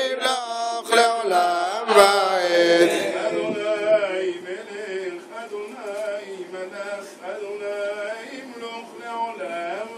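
Men's voices chanting Selichot prayers together, louder for the first few seconds and then dropping to a softer level.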